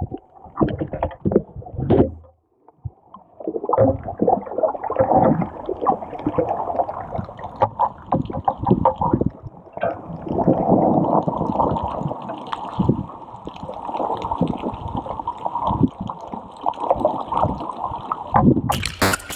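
Muffled underwater sound from a camera in its waterproof housing: constant bubbling, gurgling and knocking of water as a snorkeler swims. Near the end a sudden, louder and brighter rush of water noise breaks in.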